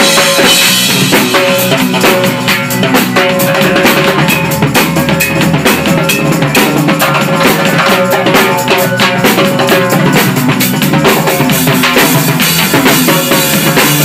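A band playing live at full volume: a drum kit and a hand-struck conga keep a steady, busy rhythm over sustained notes from the other instruments.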